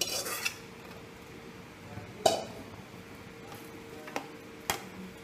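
Metal utensils clinking against a metal cooking pot: a brief clatter as a steel bowl is tipped and scraped against the pot to empty marinated chicken pieces into it, then a few single sharp clinks of a spoon against the pot as the pieces are moved about.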